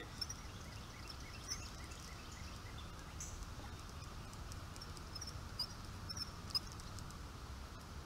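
Outdoor ambience: a steady low rumble with scattered short, high chirps and a few faint ticks.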